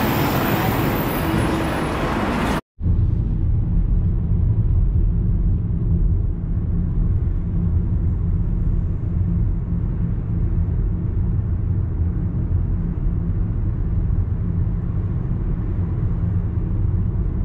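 Loud street and traffic noise, cut off suddenly about three seconds in. Then a steady low rumble of road noise from a moving vehicle, deep and muffled with little treble.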